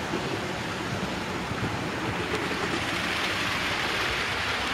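Model trains running on the track: a steady rushing rumble of wheels on rails and small motors, growing louder a little past halfway as a freight train passes close.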